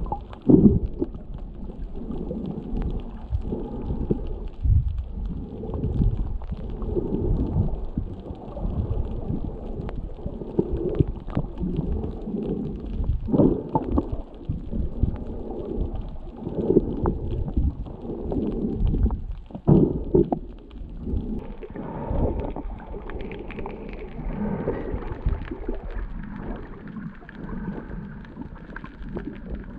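Muffled underwater rumble and sloshing picked up by a camera in a waterproof housing while it is submerged, with irregular low swells and dull thumps of water moving against the housing.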